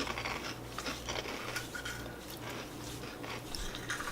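Crunching and chewing of small dry, bread-like puffed snacks, with scattered short crackles.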